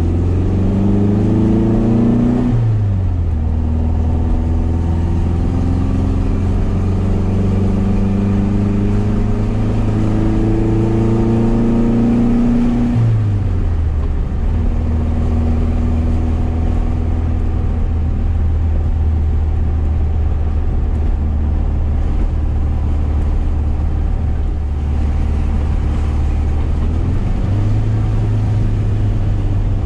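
A 1973 VW SP2's air-cooled flat-four, with dual 40 carburettors and a stainless exhaust, heard from inside the cabin while driving. It pulls up through the revs twice, each time falling sharply in pitch at an upshift, then settles into a steady cruise. Near the end the pitch steps up.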